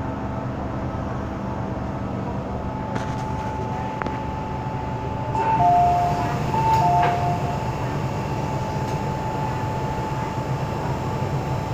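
Cabin running noise of an MTR M-Train: a steady low rumble with a faint high steady tone and a couple of light knocks. About five seconds in, an electronic chime sounds twice, each time a high note then a lower one, as on the train's chime before a station announcement.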